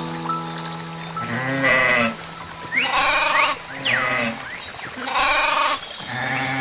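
Goats bleating repeatedly, about five wavering calls in a row, over steady background music.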